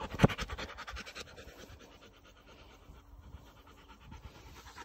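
A dog panting rapidly close to the microphone, with one sharp knock about a quarter second in. The panting dies down in the middle and picks up again near the end.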